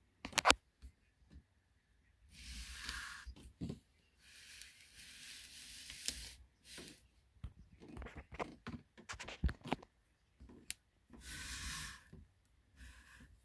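Handling noise: bursts of rustling and brushing with sharp clicks and light knocks as the metal combination plane is moved about on a cloth, with a loud double click just after the start.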